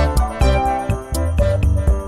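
Instrumental background music with a steady beat, a sustained bass line and bright melody notes.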